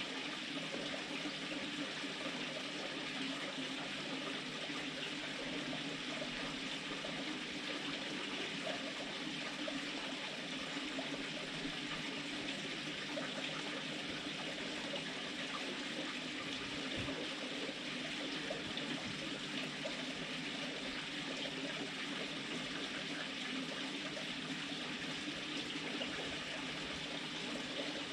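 A steady, even hiss like trickling water, unchanging in level.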